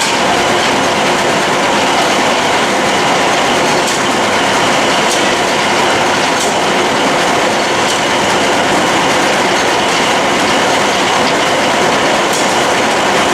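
Steam traction engine running a belted sawmill: a loud, steady mechanical clatter and rush with faint scattered clicks.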